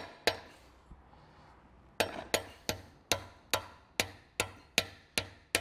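Sharp metal taps on an engine's timing-cover area. Two come at the start, then after a pause a steady run of about two and a half taps a second, each ringing briefly.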